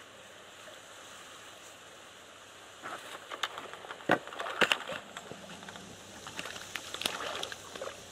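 A hooked crucian carp splashing and thrashing at the water's surface, starting about three seconds in with a run of sharp, irregular splashes that are loudest a second or two later, after a few seconds of faint steady hiss.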